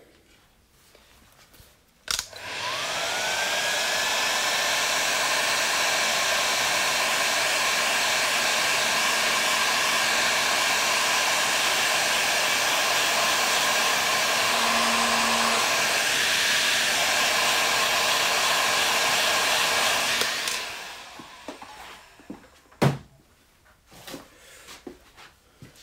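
Electric heat gun switched on with a click about two seconds in, its fan motor whining up to speed, then blowing steadily for about eighteen seconds while shrinking heat-shrink tubing over wire joints. It then switches off and runs down, followed by a few handling clicks.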